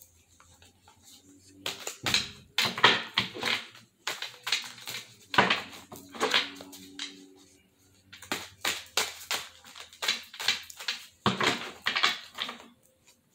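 A thick deck of cards being shuffled by hand: rapid fluttering and slapping of card edges, in three bouts of a few seconds each.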